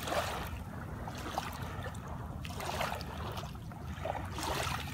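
Shallow water lapping and washing over wet sand at the waterline, a hiss that swells and fades about every two seconds over a steady low rumble.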